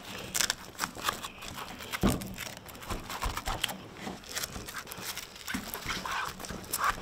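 Black soft-top fabric being handled: rustling and irregular crackling as Velcro strips are pressed together, with a dull thump about two seconds in.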